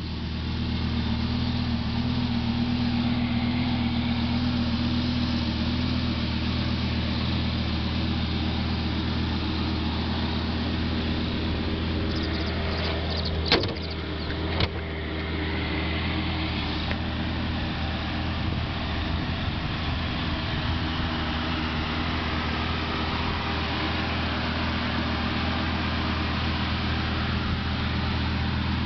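Lamborghini Gallardo's V10 engine idling steadily. Two sharp knocks come about halfway through, a second apart.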